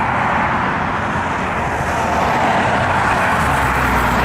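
Jet aircraft engines making a steady, loud rushing noise, with a deeper rumble growing near the end.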